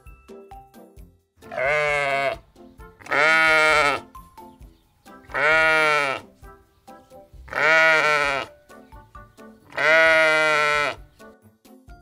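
A sheep bleating five times, each a loud drawn-out baa about a second long, coming roughly every two seconds. Soft background music plays between the calls.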